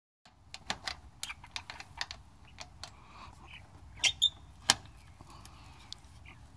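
Scattered clicks and clacks of a black metal slide-bolt latch being worked on a wooden chicken-coop door, with two louder clacks a little over four seconds in.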